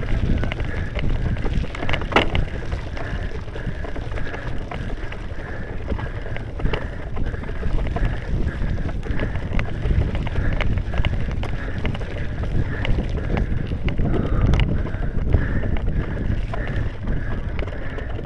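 Wind buffeting the microphone over the rumble of a cyclocross bike riding a rough, muddy climb, with frequent sharp clicks and knocks of the bike rattling over the ruts.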